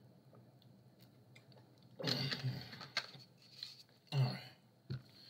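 A man drinking from a bottle, then two loud breathy vocal sounds after the swig, about two and four seconds in, with a few shorter ones after.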